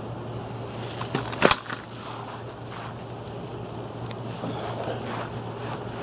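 Steady high-pitched chirring of insects with a low steady hum underneath; a sharp click about a second and a half in is the loudest sound.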